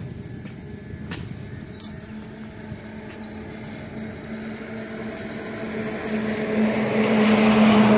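A motor vehicle's engine drawing closer, its steady hum and road noise growing much louder over the last three seconds. A couple of faint clicks come about one and two seconds in.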